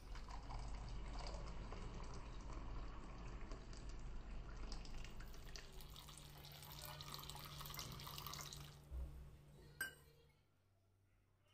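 Liquid pouring and splashing steadily for about ten seconds, then one sharp clink just as it stops.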